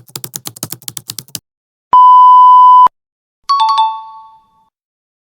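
Stock sound effects in sequence: rapid keyboard-typing clicks that stop about a second and a half in, then a one-second steady beep like a censor bleep, then a short two-note electronic chime that falls in pitch and fades.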